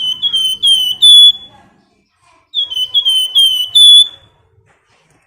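Flamboyan songbird whistling its 'nyiul' song: two phrases of about five quick, clear notes each, each note dropping slightly in pitch, the last note of each phrase the longest and loudest.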